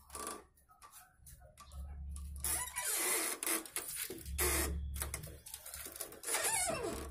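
Hand screen printing of paper cards: a series of short scraping, rustling swishes as the squeegee is drawn across the screen and printed sheets are handled, with a low rumble under several strokes.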